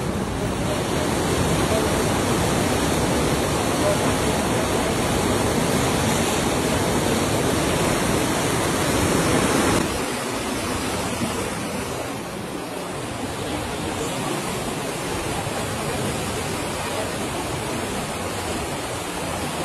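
Fast-flowing, turbulent canal water rushing as a steady noise. It drops abruptly about ten seconds in and carries on more softly.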